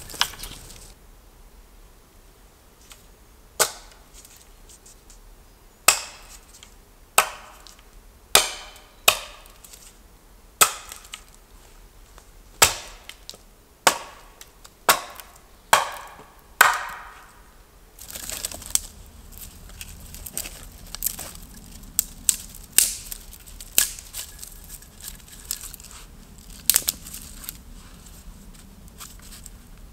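Wood being chopped with a hatchet: about fifteen sharp strikes, roughly one a second, each ringing briefly. After that come quieter, quicker knife cuts and scrapes on a stick.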